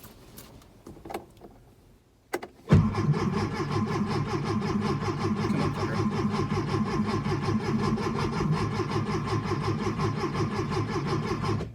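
A few small clicks, then about three seconds in the starter of a 1966 Porsche 912's air-cooled flat-four kicks in and cranks the engine in an even rhythm for about nine seconds before cutting off. The engine does not fire: a failed start attempt.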